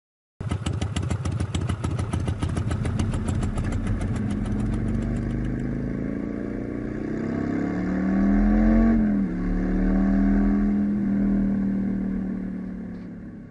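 Motorcycle engine running with a quick, even pulse, rising in pitch as it is revved, then dropping back and holding steady before fading out.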